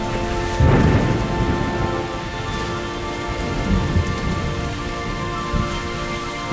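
Rain falling steadily, with a sudden rumble of thunder breaking in about half a second in and dying away over the next second or so. A faint steady music drone lies underneath at the start.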